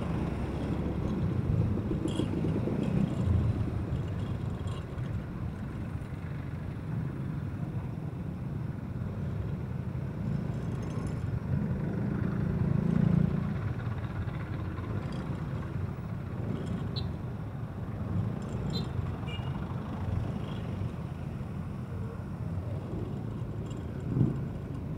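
Motor scooter riding in town traffic: a steady engine hum and road noise, with the surrounding traffic. The engine grows louder for a second or so about halfway through, and there is a short bump near the end.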